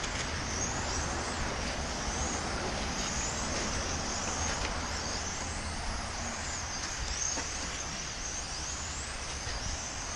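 Several electric RC touring cars racing: high-pitched motor whines rise and fall again and again as the cars accelerate and brake, over a steady hiss.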